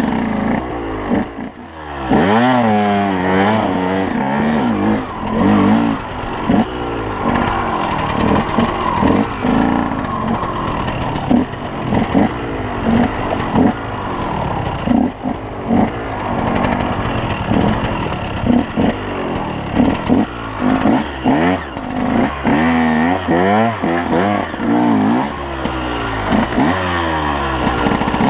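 KTM 125 EXC two-stroke enduro engine revving up and down over and over as the throttle is worked, with a brief lull a second or so in.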